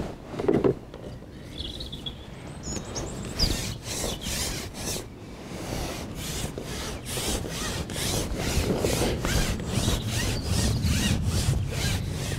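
A carp fishing pole being shipped out, its sections sliding and rubbing in a repeated rhythm of about two strokes a second.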